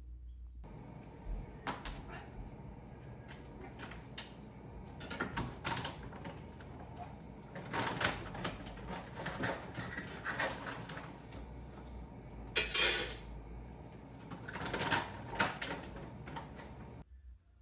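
Clicks and knocks of cupboards and kitchenware being handled, with one short loud hissing burst about 13 seconds in.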